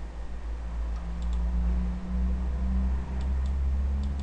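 A few faint computer mouse clicks, some in close pairs, about a second in and again past three seconds, while menu items are picked. A steady low hum sits under them and is the loudest sound.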